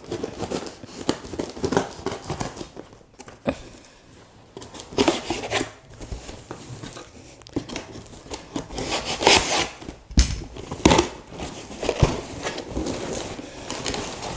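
A large kitchen knife slicing through packing tape on a cardboard box, then cardboard scraping and rustling as the flaps are pulled open, with a few short knocks.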